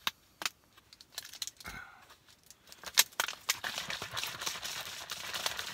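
Plastic water bottle being handled and capped with a few sharp clicks, then shaken from about three seconds in to mix instant coffee into the water, a steady rattling clatter of water and thin plastic.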